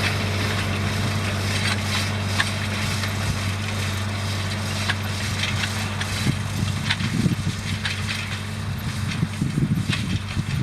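Massey Ferguson 2705 tractor's diesel engine running steadily, with scattered clicks and rattles over it and some heavier rumbling in the second half.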